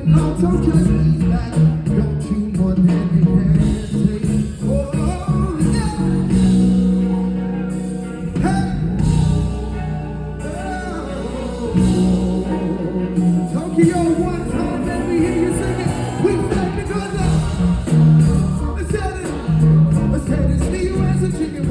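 Live band playing a soul-pop song, with a singer's voice over bass and drums. The backing thins out for a few seconds midway, then the full band comes back in.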